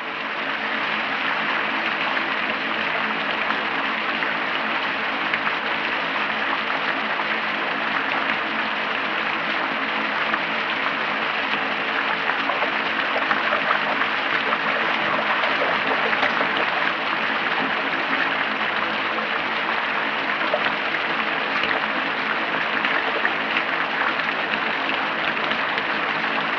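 Heavy rain falling steadily, a dense even hiss, on an old film soundtrack, with a faint low steady hum underneath.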